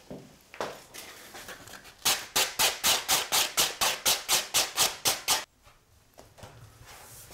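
Hand sanding with a sheet of sandpaper, taking the overhanging iron-on edge banding down flush on the edge of a melamine window sill. Quick back-and-forth rubbing strokes, about four a second, start about two seconds in and stop abruptly about three seconds later.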